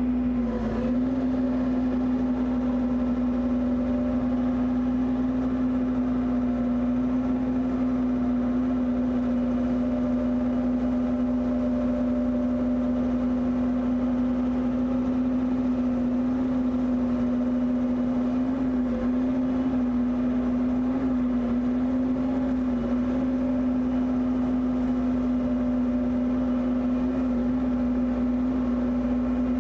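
Bobcat E55 mini excavator running at a steady high throttle, driving the hydraulic motor of a 42-inch Blue Diamond rotary brush cutter as it cuts tall grass and brush. The sound is a steady hum with one strong tone that barely changes, with only a few small wavers past the middle.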